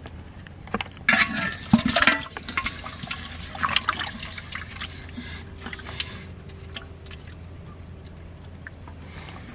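Water splashing and sloshing in a metal pot as live fish are dropped in and handled by hand. The loudest splashes come about a second in and again around four seconds.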